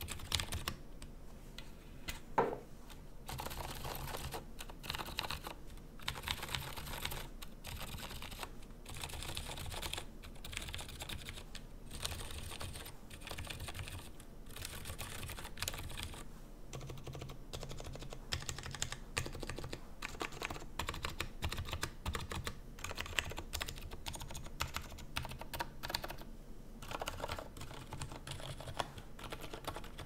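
Continuous typing on a Matrix IM+ custom mechanical keyboard fitted with lubed silent Gateron Brown switches, a polycarbonate plate and GMK keycaps: a dense run of short key clicks, with one louder knock about two seconds in.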